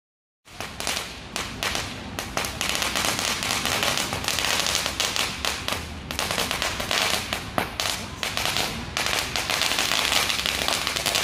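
Ground-level fireworks crackling densely, a fast unbroken run of small sharp pops that starts suddenly about half a second in.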